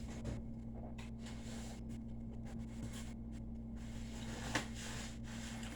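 A utensil scraping and tapping on a plate in soft, irregular strokes, with one sharp click about four and a half seconds in, over a steady low hum.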